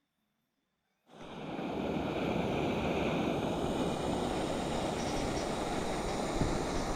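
Steady rushing of running water with a heavy low rumble, cutting in abruptly about a second in after near silence.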